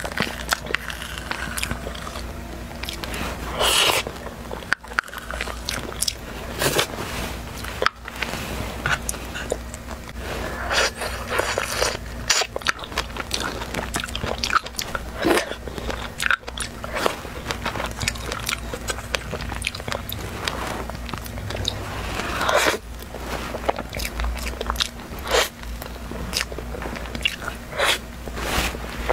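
Close-miked eating sounds: a metal spoon clicking and scraping against a dessert cup, with chewing and lip smacks as soft pudding and cream cake are spooned up and eaten.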